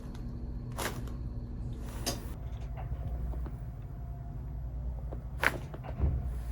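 Chiropractic neck adjustment on a patient with fresh whiplash: faint soft clicks from handling and setting up, then a sharp click about five seconds in, over a steady low hum.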